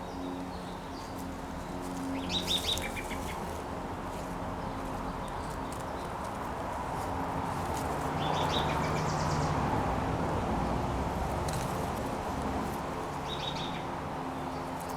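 Garden songbirds giving short bursts of rapid, high chirps four times, over a steady low hum.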